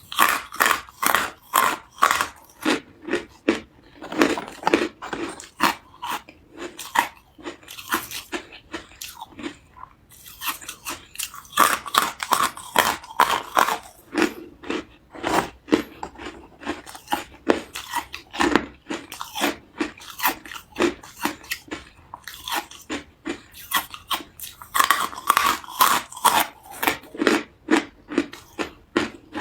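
Carbonated ice being bitten and chewed: rapid, sharp crunching that comes in three thick spells, with slower, sparser crunches between them.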